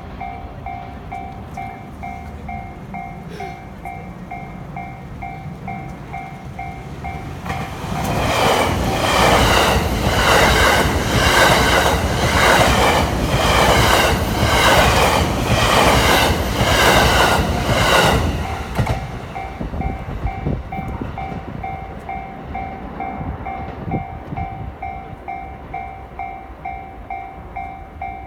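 Railway level-crossing alarm bell ringing steadily in even pulses. About eight seconds in a train passes close by for about ten seconds, loud, with a rhythmic clatter of wheels over the rail joints that drowns out the bell.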